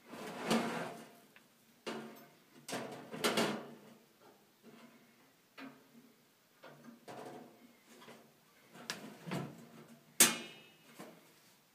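Galvanized sheet-metal chicken feeder being handled while its door spring is fitted: a series of metal rattles and clanks with short pauses between them, and a sharp metallic clack with a brief ring about ten seconds in.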